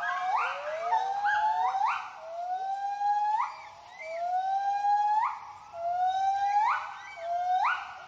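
Gibbons giving their territorial hooting call: a series of loud rising whoops, about one a second, each sliding up and then leaping sharply higher. Two callers overlap in the first second or two, before the notes settle into a single steady sequence.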